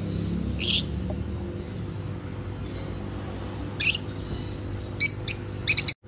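Peach-faced lovebirds giving short, shrill squawks: one near the start, one about four seconds in, then a quick run of several near the end, over a steady low background hum.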